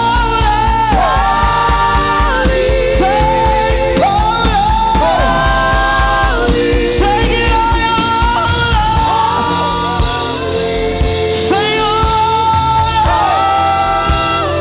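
Live gospel worship song: several singers holding long notes together in harmony, with a slight waver, over steady instrumental backing.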